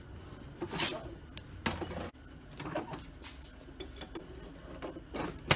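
Scattered light clinks and knocks of a steel horseshoe and tongs being handled between hammering heats, with a sharper clank near the end. A low hum underneath cuts off about two seconds in.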